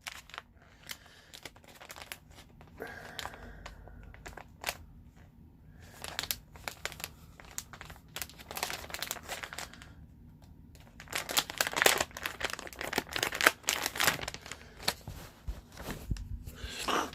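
Packaging of a pair of boxer briefs being torn and opened by hand: irregular crinkling, rustling and tearing, busiest and loudest about two-thirds of the way through.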